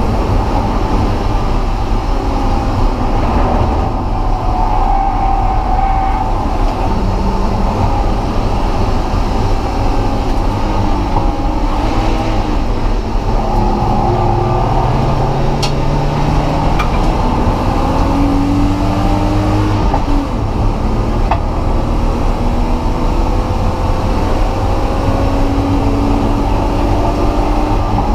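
Car engine and road noise heard from inside a moving car: a steady, loud rumble, with the engine pitch rising slowly over a few seconds several times as the car accelerates.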